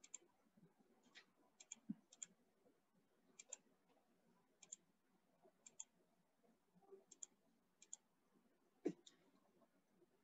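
Faint computer mouse clicks, many heard as a quick pair of press and release, about one a second, with a soft thump near the end.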